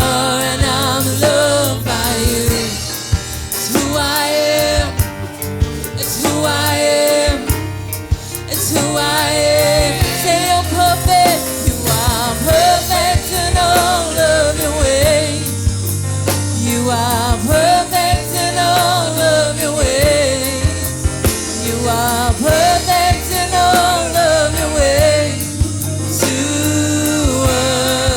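Gospel worship music: a voice singing long, wavering phrases over a band with a steady drum beat.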